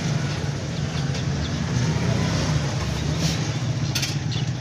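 A motor engine running steadily at idle, a constant low drone, with a few short sharp clicks near the end.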